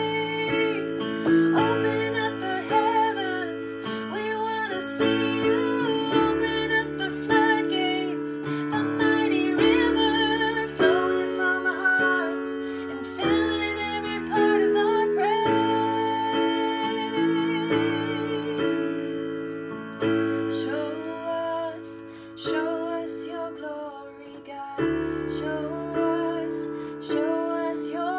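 A woman singing a slow worship song over sustained keyboard chords and a bass line.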